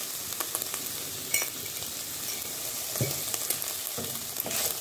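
Ground beef frying in lard, sizzling steadily as it is stirred in the pan with a wooden spoon. A few sharp clicks and knocks of utensils against the pan and jar come through the sizzle.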